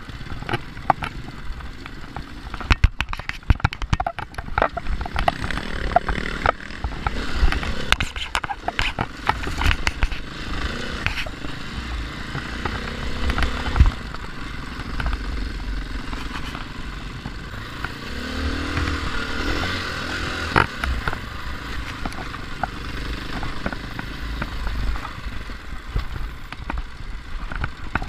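Dirt bike engine running under way on a rough dirt trail, with many sharp clacks and rattles from stones and the bike's chassis over the bumps. The engine pitch rises and falls as it revs about two-thirds of the way through.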